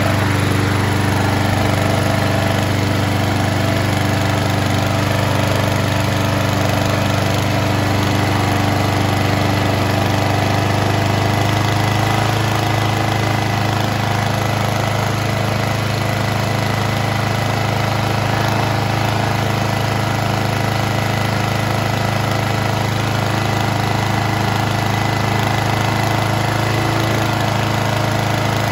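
Briggs & Stratton 6 HP Quantum single-cylinder four-stroke engine on a Craftsman push mower running steadily at idle. Its pitch rises slightly a little under halfway through, as the governor spring is tightened to raise an idle that was running low.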